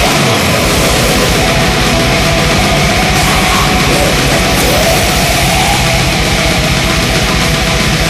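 Black metal recording: a dense wall of distorted guitars over a rapid, unbroken drum beat, loud and even throughout.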